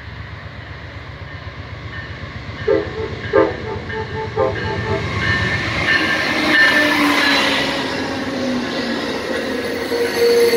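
Amtrak P42DC diesel locomotive approaching at speed, its engine throb growing louder, sounding short horn toots about three seconds in, then rushing past with a drone falling in pitch, followed by the rolling rush of the passenger cars.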